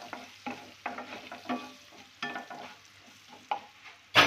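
A wooden spatula stirring and scraping onions and ground spices around a nonstick kadai, about two strokes a second, each one making the pan ring briefly, over a light sizzle of the mustard oil. There is one loud, sharp knock near the end.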